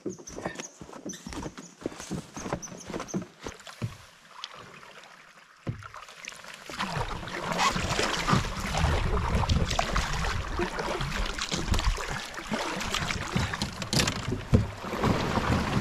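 Canoe paddling: scattered knocks and splashes of the paddle on the water and the hull. About six to seven seconds in, a louder steady rushing noise sets in and continues under further knocks.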